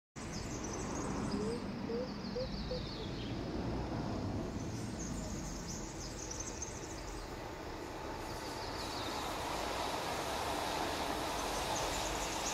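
Outdoor nature ambience: a steady rushing noise with high bird chirps and trills at intervals, starting suddenly as the sound comes in.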